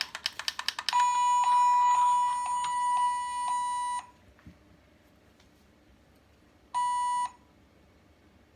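Jackson Storm Racetrack Talkers toy car bleeping in its hidden sound-test mode: a burst of rapid clicks from its window button being pressed over and over, then a steady electronic bleep lasting about three seconds, and one short bleep near the end after a pause.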